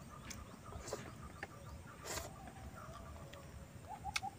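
Scattered sharp clicks and cracks of land crab shell being broken and eaten, the loudest crack about two seconds in. Near the end a bird starts calling in a quick run of repeated short notes, about four a second.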